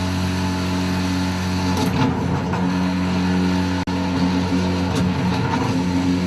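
Grundfos SEG sewage grinder pump running with a steady electric motor hum, with a brief dropout just before four seconds in.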